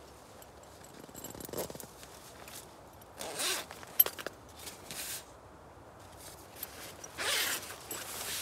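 Sleeping bag zipper pulled open in several strokes, among soft rustling of the bag's fabric, with a sharp click about four seconds in.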